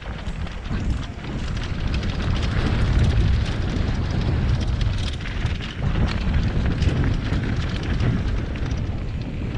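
Mountain bike descending a gravel dirt trail at speed, heard from a helmet-mounted camera: wind rushing over the microphone and tyres rolling over loose stones, with many small rattles and knocks from the bike.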